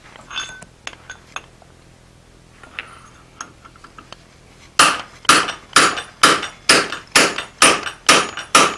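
Hand hammer striking a round punch held in the hole of a red-hot 4140 steel hammer blank on an anvil: a steady run of ringing metal-on-metal blows, about two a second, starting about five seconds in, as the punched eye is stretched larger. Before that, a few light clinks as the punch is set in place.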